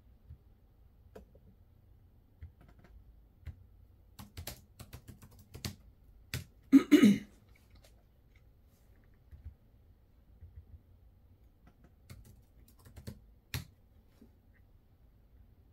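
Small items and packaging being handled on a desk: scattered light clicks and taps, with one louder, half-second scuffing noise about seven seconds in.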